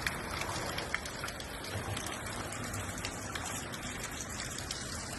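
A small waterfall of runoff water splashing steadily, the stream running full after spring rains.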